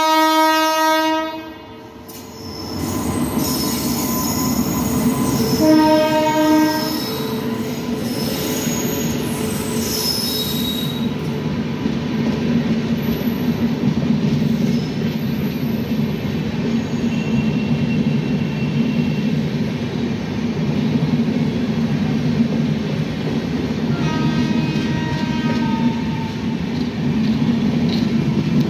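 Indian Railways express passing close at speed, hauled by an electric locomotive: a loud horn blast that ends about a second and a half in, and a second short blast about six seconds in. Then the steady rumble and clatter of the LHB coaches rolling past, with high-pitched wheel squeal from about three to eleven seconds in, and a fainter horn about twenty-four seconds in.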